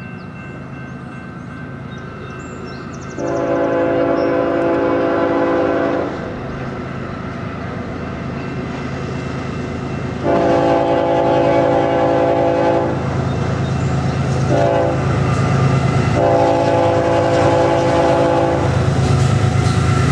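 A CN freight locomotive's multi-note air horn sounds two long blasts, a short one and a final long one, the long-long-short-long grade-crossing signal. Beneath it, the diesel locomotive's engine rumble and the wheel noise grow louder as the train comes close and begins to pass.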